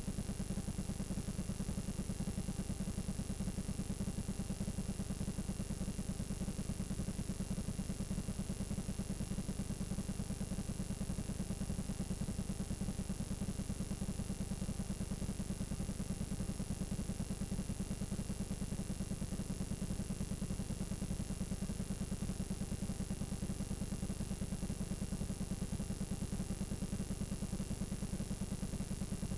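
Steady low buzz with hiss and a faint high whine from the audio track of blank, unrecorded videotape playing back as static.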